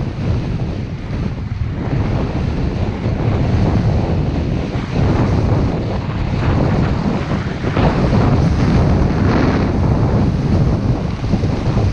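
Wind buffeting an action camera's microphone during a fast ski run, with the hiss and scrape of skis on groomed snow swelling every second or two as the skier turns.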